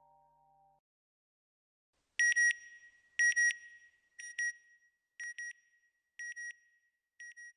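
Electronic beeps: pairs of short, high, pure beeps about once a second, six pairs in all, getting quieter after the first two. The last of the music fades out in the first second.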